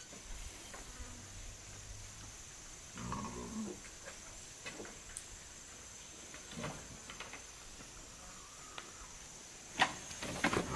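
Steady high-pitched insect drone, with a few faint knocks and one sharper knock near the end.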